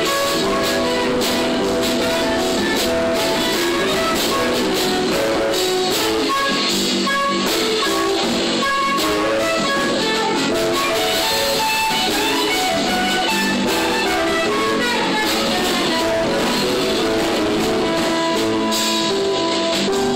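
Music: a dense instrumental piece of many held, overlapping notes at a steady level.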